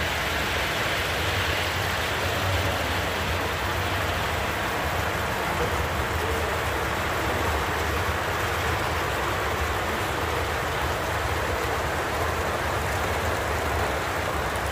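Model trains rolling along a model railroad layout: a steady rushing rumble of wheels on the rails as a long freight train passes close by.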